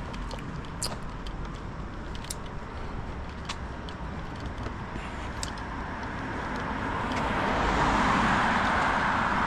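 A car drives by on the street, its tyre and engine noise swelling over the last few seconds as it passes close. A few light clicks sound in the first half.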